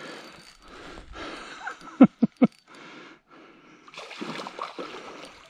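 A hooked carp splashing and thrashing at the water's surface as it is played in on a rod and reel, loudest from about four seconds in. Three sharp knocks come close together about two seconds in.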